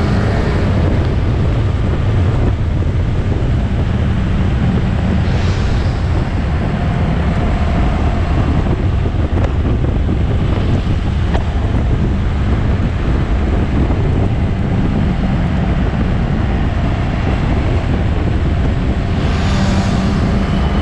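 Motorcycle riding on the road: steady wind rushing over the helmet-mounted microphone with the engine's low hum underneath.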